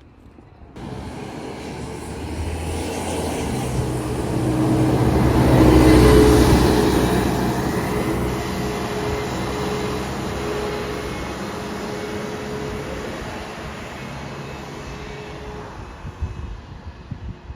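A passing engine: a steady drone that builds to its loudest about six seconds in, then slowly fades away.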